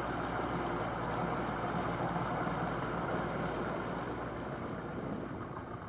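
Boat motor running steadily: a continuous low hum with a hiss of noise over it.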